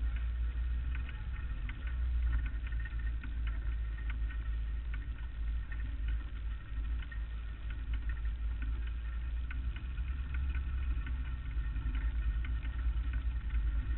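Lightning sprint car's engine idling as the car rolls slowly, a steady low rumble with light irregular ticks over it.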